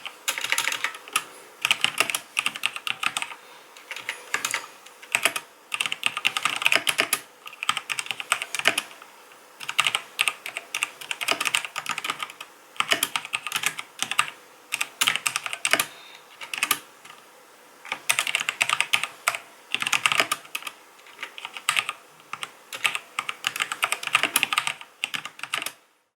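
Typing on a HyperX Alloy FPS RGB mechanical keyboard with Kailh Speed Silver linear switches: rapid keystroke clicks in bursts of a second or two, with short pauses between them. The typing stops just before the end.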